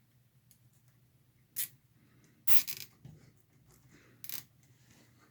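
Nylon zip tie being pulled tight through its ratchet catch, in three short zipping bursts: one about a second and a half in, a longer one of several quick strokes near the middle, and a brief one near the end.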